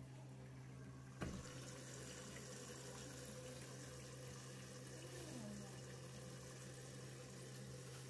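Candy washing machine in test mode: its water inlet valve clicks open about a second in, and water then rushes steadily into the open detergent drawer over a steady low hum.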